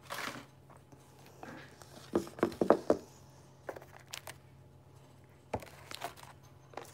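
A few light knocks and clicks of objects being handled on a tabletop, with clothing rustling close by and a faint steady hum underneath.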